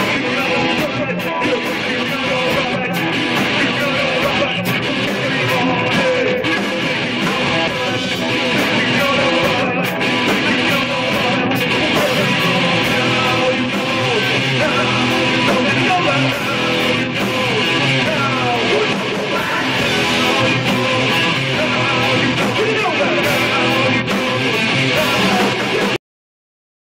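A live band playing, with strummed guitar to the fore. The sound drops out completely for about a second near the end.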